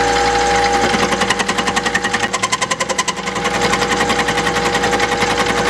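Small metal lathe running with a steady motor whine while a carbide tool takes a light cut on an eccentric offset in a four-jaw chuck. The cut is interrupted, giving a rapid, even thump-thump-thump, strongest in the first few seconds.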